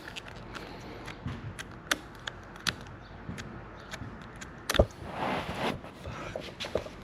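Small parts of a motorcycle turn signal switch assembly being handled and fitted together on the bench: scattered light clicks, a sharper click about five seconds in, then a brief scraping rustle.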